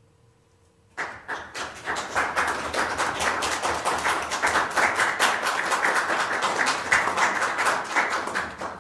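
After about a second of near silence, an audience suddenly breaks into applause: many hands clapping, irregular and dense, easing off near the end.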